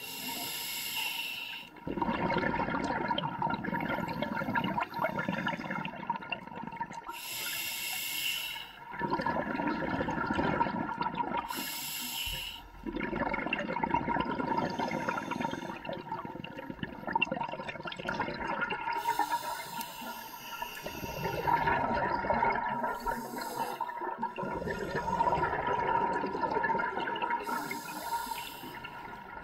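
Scuba diver breathing through a regulator underwater. Short hissing inhales alternate with long bubbling exhales, about five breaths.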